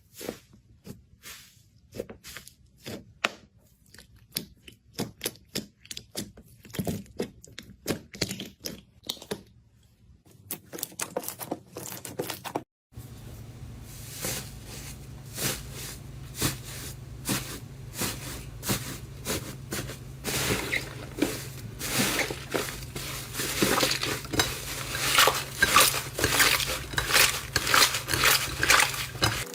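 Slime being squeezed and poked by hand, making a string of sharp clicking and crackling pops. Sparse at first, then after a cut about halfway the crackles come thick and fast and grow louder, over a low steady hum.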